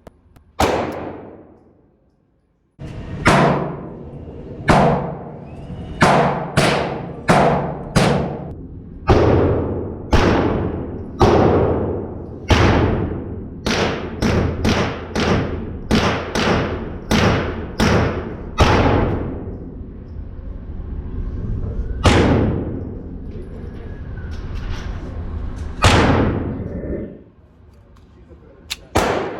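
9mm pistol fired in a long string of about twenty shots, most of them half a second to just over a second apart, then two single shots a few seconds apart.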